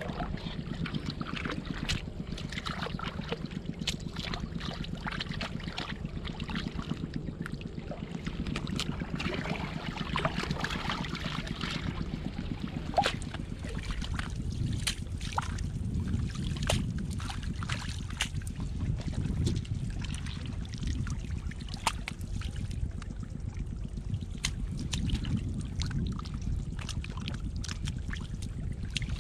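Bare hands digging clams out of wet mud in shallow seawater: sloshing and squelching water and mud, with scattered sharp clicks of clam shells knocking together, over a steady low rumble.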